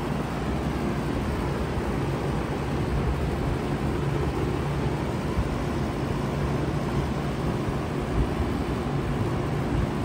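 2013 Bard 3.5-ton wall-hung heat pump running steadily in cooling mode: an even rush of fan air with a low steady hum.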